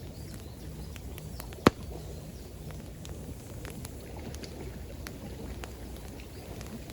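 Campfire crackling with scattered small pops and one sharp, loud pop just under two seconds in, over a steady low rush of flowing water.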